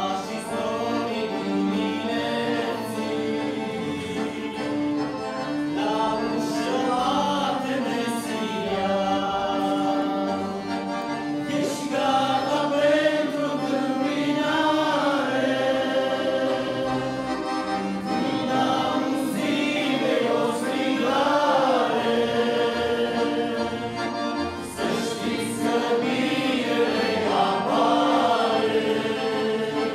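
Two men singing a hymn in Romanian, accompanied by two accordions.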